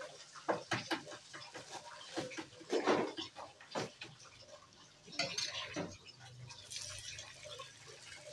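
Metal spatula scraping and clinking against a black wok as stir-fried noodles are tossed, in irregular strokes.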